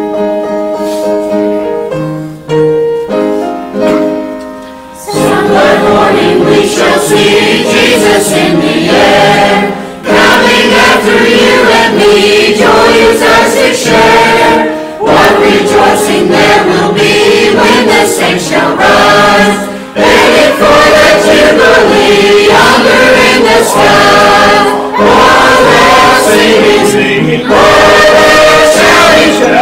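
Church choir of men and women singing a hymn in full voice, in phrases that break about every five seconds. The first five seconds are quieter held notes before the full choir comes in.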